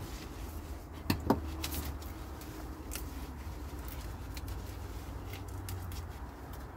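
Chrysanthemum leaves being snapped and stripped off the stems by hand: scattered crisp clicks and crackles, with two sharper snaps about a second in, over a steady low rumble.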